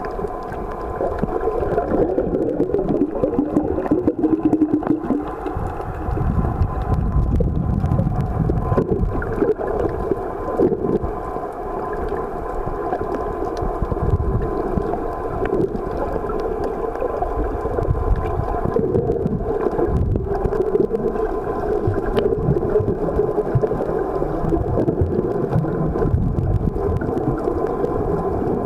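Muffled underwater noise heard through a camera's waterproof housing: a steady low rumble and gurgling of water, with a faint steady hum.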